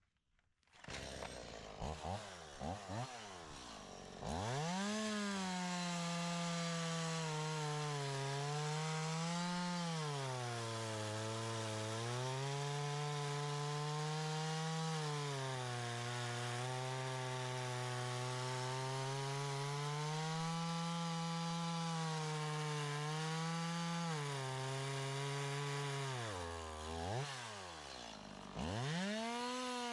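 Chainsaw revved in a few short blips, then held at high speed cutting wood, its pitch sagging and recovering again and again as the chain bites. Near the end it falls back almost to idle for a couple of seconds, then revs up again.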